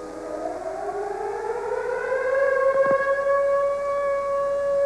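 Outdoor civil-defense warning siren sounding a tornado warning, the signal to take cover. It winds up, rising in pitch for about two and a half seconds, then holds a steady wail.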